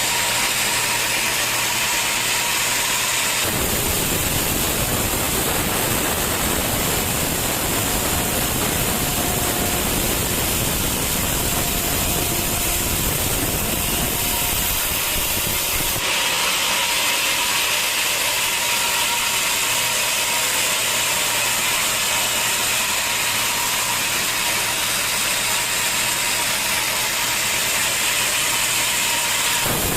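Sawmill saw machinery running and cutting timber, a steady loud noise with a strong hiss. It changes abruptly about 3.5 seconds in to a fuller, lower sound, and about 16 seconds in back to a thinner, hissier one.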